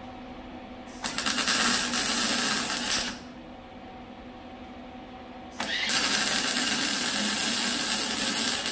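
MIG welder arc welding exhaust pipe: two runs of steady crackling sizzle, the first starting about a second in and lasting about two seconds, the second starting a little past halfway and going on to the end. Underneath is a steady electrical hum.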